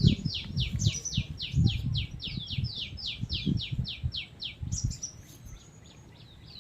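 A bird calling: a rapid, even run of short downward-sweeping notes, about five a second, that stops about four and a half seconds in, with irregular low thumps underneath.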